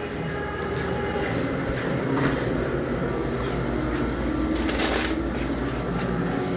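Rustling and rubbing from a phone being handled and carried, over a steady low hum, with a brief louder rush of noise about five seconds in.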